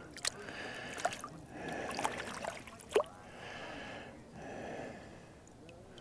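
A person breathing heavily close to the microphone in soft, recurring puffs, with a few small sharp clicks about a second apart.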